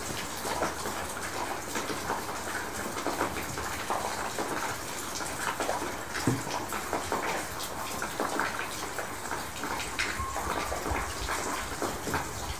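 Steady hiss of water with scattered small patters and clicks.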